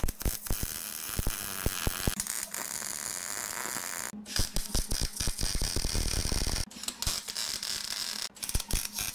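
Arc welder laying tack welds on steel: a steady crackling sizzle, broken by brief pauses between tacks about four seconds in, near seven seconds and just after eight seconds.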